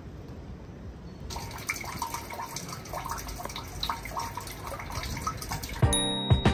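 Water dripping and trickling into a drain under a wet metal grate, a quick irregular patter of drops starting about a second in. Loud outro music with a beat starts near the end.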